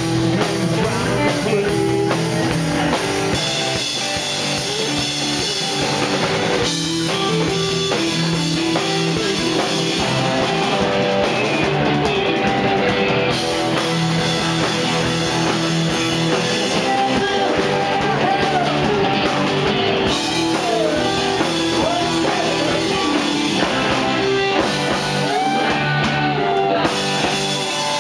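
A live rock band playing loudly, with electric guitars, bass guitar and a drum kit.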